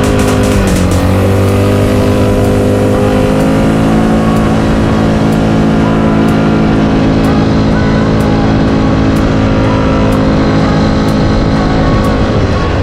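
Quad bike (ATV) engine running at speed across sand: its pitch drops briefly near the start, picks up again about a second in, then holds steady at high revs.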